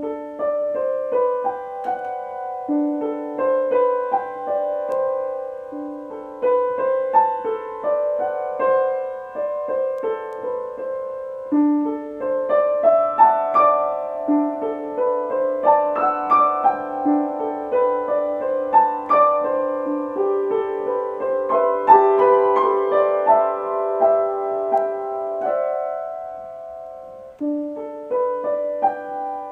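Solo piano music: a slow, gentle piece of single melody notes over held chords, easing into a brief lull near the end before the notes resume.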